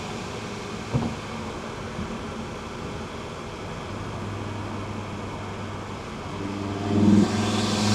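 Audi TT RS's turbocharged 2.5-litre five-cylinder engine at light load with a low steady drone and a short click about a second in. Near the end it comes back on throttle and grows louder, with a brief sharp peak.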